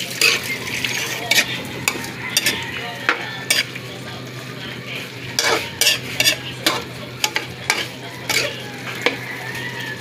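A metal spatula stirs and scrapes chunks of pork around a metal wok, making irregular scrapes and clinks against the pan over a light sizzle of the meat frying.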